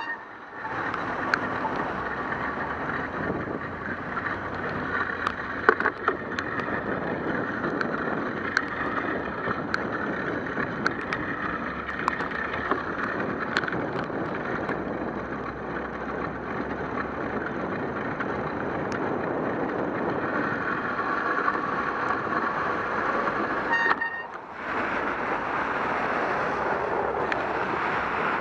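Riding noise picked up by a bicycle-mounted camera on wet city streets: a steady rush of tyre and road hiss, wind on the microphone and passing car traffic, with scattered small clicks and knocks. The sound drops out briefly twice, about half a second in and near the 24-second mark.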